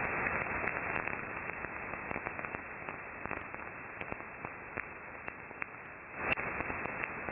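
Ultrasound from water being poured between two glass beakers, picked up by an IMP23ABSU MEMS microphone and shifted down into hearing range by an SDRplay RSPdx software-defined receiver: a hiss of static full of sharp crackling clicks. It grows louder about six seconds in.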